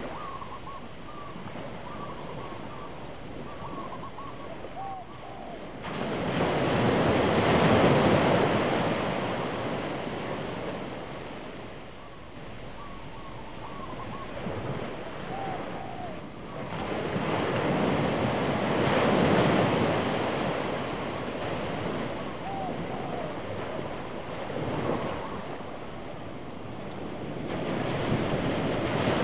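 Waves breaking on a shore, the surf swelling loudly about every eleven seconds and easing off in between, with faint short chirps in the quieter stretches.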